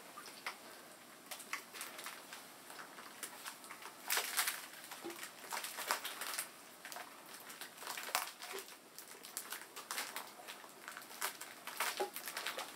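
Irregular small clicks, taps and rustles as a large calligraphy brush is worked in its ink bucket, thickest about four seconds in.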